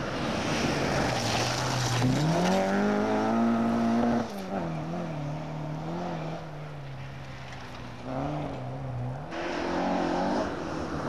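Rally car engines at full throttle on a gravel stage. One engine climbs steadily in pitch about two seconds in, and the sound changes abruptly just after four seconds to a quieter engine note rising and falling with the throttle. Near the end another car's engine comes in, with a hiss of tyres on loose gravel.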